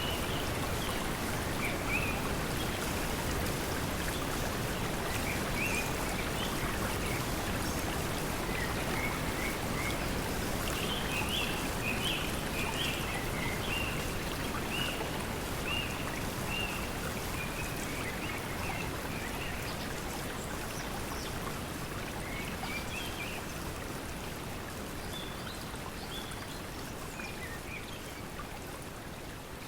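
Steady pink noise mixed with flowing water, with small birds chirping now and then, most often in the middle stretch. The whole mix slowly fades down toward the end.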